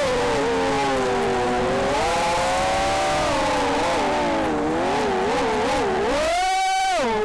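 The motors and propellers of a small FPV racing quad (Cobra 2204 2300KV brushless motors) whining. The pitch wavers lower with each throttle change, then rises sharply near the end as the throttle is punched, and falls back again.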